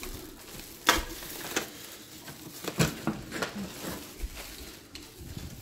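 Scattered light knocks and clicks with some rustling, from a person carrying a plastic trash bag and handling a door. The sharpest knock comes about a second in.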